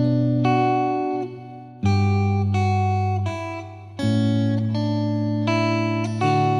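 Slow, calm instrumental guitar music. Chords are plucked every half second to second and a half, and each one is left to ring and fade.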